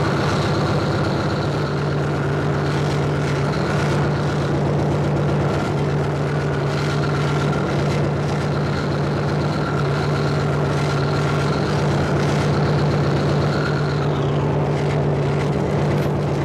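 Live power-electronics noise from a modular synthesizer rig and mixer: a loud, dense wall of distorted noise over a steady low drone, with held high tones. About fourteen seconds in, the highest tone slides down and fades out.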